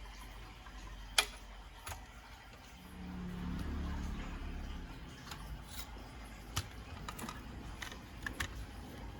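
Small mechanical clicks and handling noises from work on a CD player, with a sharp click about a second in and scattered lighter clicks in the second half. A low whirr runs for about two seconds near the middle.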